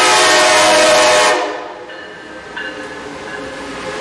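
Locomotive air horn blowing a loud, steady chord that cuts off about a second and a half in, followed by the quieter sound of the train rolling into the station.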